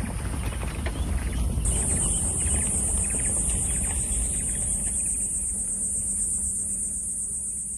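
Small Toyota MPV driving along a dirt track, its engine and tyres giving a low, steady rumble. From about two seconds in, a high, steady insect buzz sits over it.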